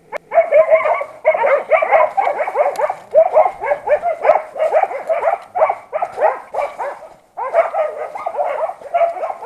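Hunting dogs barking in rapid, overlapping calls, with a brief break about seven seconds in.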